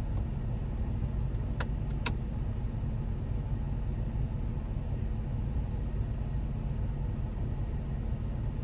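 Jeep Wrangler engine idling with the air conditioning running, a steady low hum heard from inside the cab. Two light clicks come about two seconds in.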